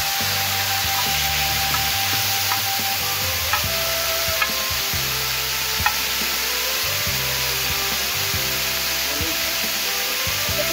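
Marinated chicken pieces sizzling in hot oil on a large flat iron tava over a wood fire, with a steady hiss. A metal spatula stirs them, scraping and clinking against the pan several times.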